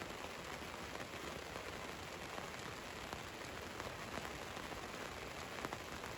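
Rain falling steadily on a van's roof, an even patter of many small drop ticks, one slightly sharper drop near the end.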